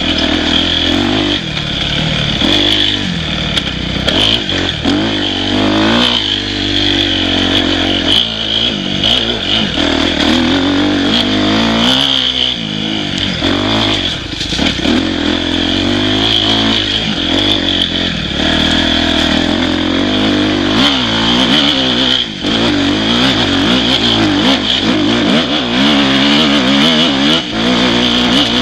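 Dirt bike engine revving up and falling back over and over as it is ridden along a rough forest single track, with short knocks and rattles from the bike going over the ground.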